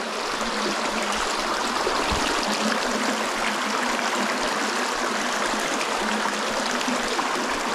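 Shallow stream running over rocks and pebbles: a steady rush and babble of water.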